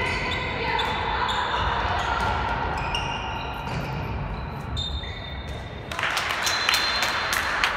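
Players' shoes squeaking on the sports-hall court in many short high squeals, with thuds of the ball, echoing in the hall; noise rises about six seconds in with a run of sharp knocks.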